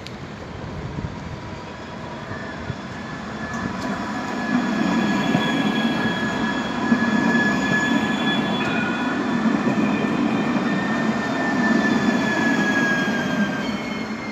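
Nice line 2 tram running past close by: a rumble of wheels on the rails that grows louder about four seconds in, with a high whine held for several seconds that dips slightly in pitch near the end.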